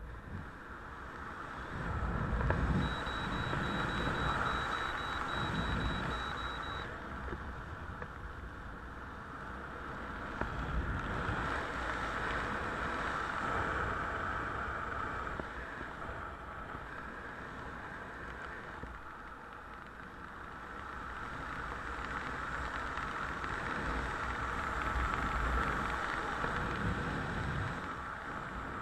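Wind buffeting the microphone of a skydiver flying under an open parachute canopy, a steady rushing with low rumble that swells and eases several times.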